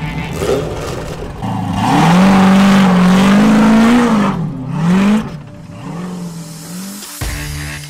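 LS3 V8 engine of an Ultra4 4400-class race car revving hard as the car launches and accelerates away, the pitch climbing steeply about two seconds in and rising and falling with the throttle. Roughly five seconds in it drops to a quieter, lower note as the car pulls away.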